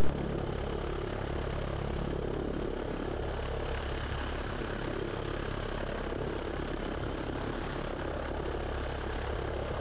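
Super Decathlon's four-cylinder Lycoming engine idling steadily with the propeller turning, holding short of the runway before takeoff.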